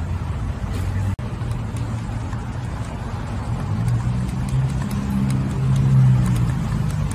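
A motor vehicle's engine running, a low hum that swells about four to six seconds in, with faint light clinks as a metal spoon stirs waffle batter in a plastic cup.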